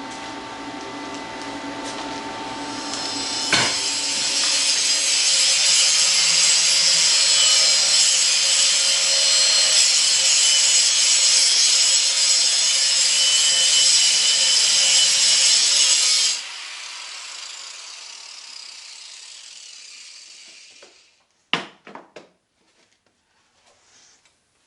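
A handheld power grinder working steel, cleaning up the rough plasma-cut edge of a large chain sprocket. It runs steadily at high speed for about thirteen seconds, stops suddenly and then winds down over a few seconds, followed by a few short knocks.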